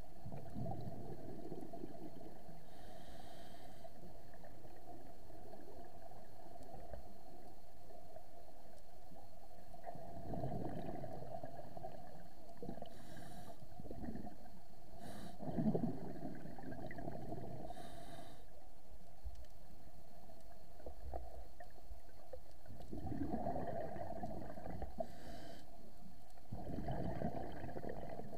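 Scuba regulator breathing heard underwater through an action-camera housing: exhaled bubbles rumbling out in bursts every few seconds, with faint hisses of inhalation in between, over a steady muffled hum.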